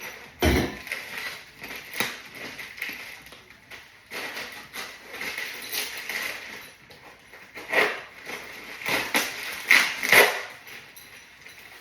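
Irregular handling noises of furniture being assembled: scattered knocks, clicks and rustling, with a heavy thump about half a second in and sharper knocks near the end.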